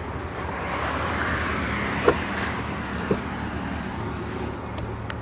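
Road traffic: a passing vehicle's noise swells and fades over a steady low hum, with a few short sharp clicks, the last near the end.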